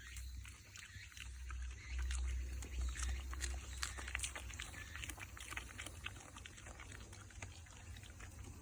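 Shiba Inu dog eating cabbage: a run of rapid, irregular crunching clicks, busiest in the first few seconds, over a low rumble.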